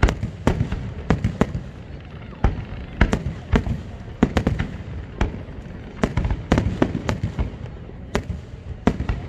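Aerial fireworks shells bursting in quick, irregular succession, several sharp bangs a second over a continuous low rumble.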